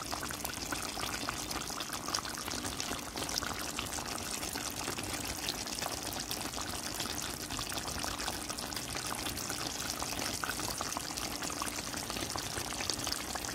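Curry chicken gravy simmering on low heat in a pot: a steady bubbling with a fine crackle of small bubbles popping.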